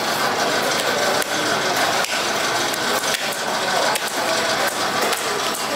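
Busy market din: a steady wash of background noise with scattered sharp clacks and knocks about once a second.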